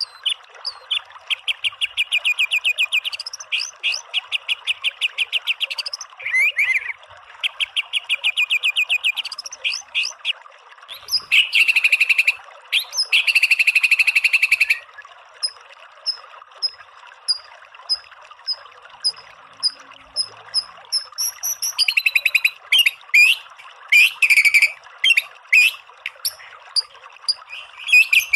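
White-rumped shama (murai batu) singing rapid-fire 'tembakan' trills: fast runs of the same note repeated many times a second, in several bursts. Through the middle it switches to single high notes about twice a second, then comes back to fast, varied phrases near the end, over a steady faint hiss.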